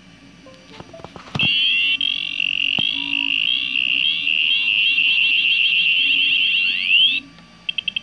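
Arduino-driven piezo buzzer playing an electronic grenade-explosion effect: a shrill, warbling beep tone with rapid pitch sweeps that ends in a rising glide and cuts off suddenly. Near the end a fast-pulsing beep begins for the idle glow mode.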